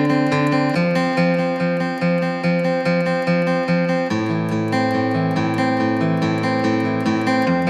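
Background music: acoustic guitar strummed in a steady rhythm, changing chord about a second in and again near the middle.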